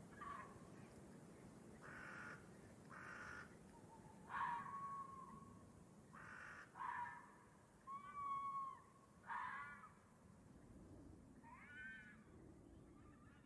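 Faint, repeated animal calls, about ten short harsh calls spaced a second or two apart, several with a pitch that rises and falls; the loudest come in the middle.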